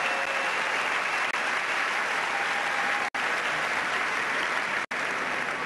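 Large crowd applauding steadily, with two very short drop-outs in the sound about three and five seconds in.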